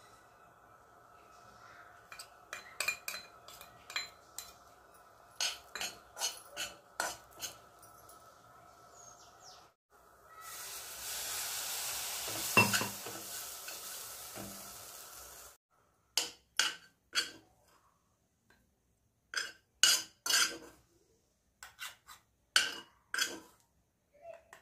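Metal spoon clinking and scraping against a kadhai while stirring a crumbly mixture in ghee, in quick separate strokes. Around the middle comes a few seconds of sizzling hiss from the hot pan, with one loud knock.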